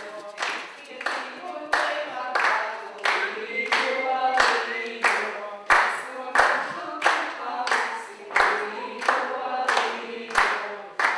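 A group of voices singing together, with hand claps keeping a steady beat of about three claps every two seconds.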